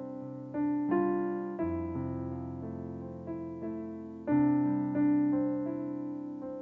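Solo piano playing a slow pop ballad: chords struck one after another, each left to ring and fade, with a melody line over them.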